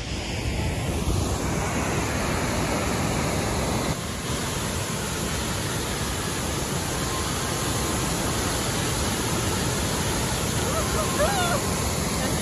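Steady rushing of a large waterfall pouring onto a rocky shore, mixed with wind on the microphone. A short, high voice sounds briefly near the end.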